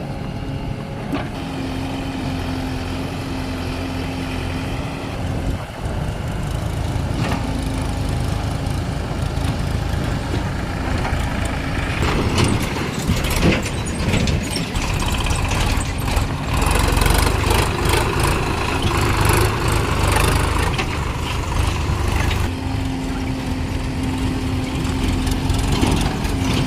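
Diesel engine of a backhoe loader running steadily with a constant hum, working as it digs and loads mud. In the middle it grows louder for several seconds, with rattling and scraping.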